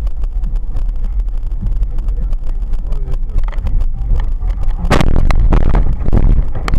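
Car engine and road rumble heard from inside the cabin by a dashcam. About five seconds in comes a loud collision crash that lasts over a second.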